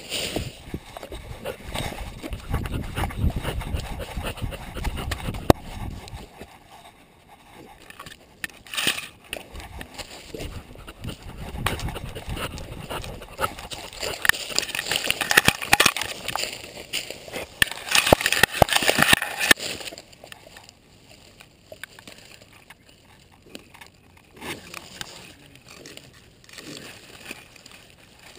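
Rustling and scraping as a dog moves through dry leaves and grass, heard through a camera strapped to its collar, with the mount rubbing and knocking against the dog. Busy for about the first twenty seconds, then quieter.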